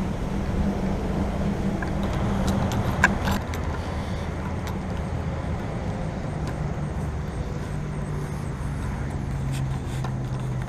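A motor vehicle engine running with a steady hum that drops to a lower steady pitch about halfway through, over a wash of outdoor noise. A single sharp click about three seconds in.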